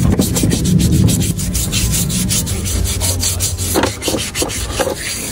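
Repeated rubbing and scraping strokes, irregular and fairly loud, over a steady low hum.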